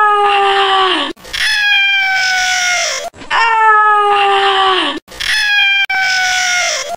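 A person screaming: four long screams, each a little under two seconds and dropping in pitch at its end, looking like the same scream sound repeated.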